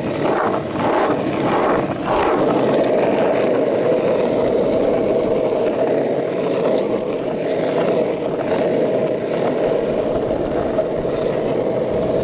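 Longboard wheels rolling over rough asphalt: a steady, loud rolling noise, with a few brief scrapes in the first two seconds.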